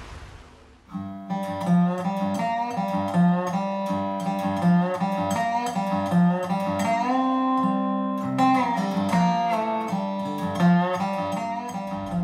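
Music with plucked guitar over a repeating low note pattern, starting about a second in after faint wind and water noise dies away.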